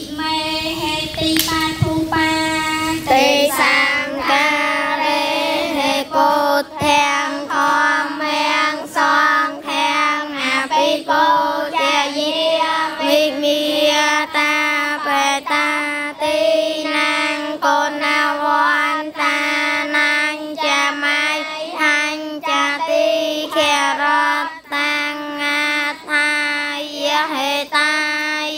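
A group of Cambodian schoolchildren chanting Buddhist devotional verses in unison, syllable by syllable on one steady reciting pitch.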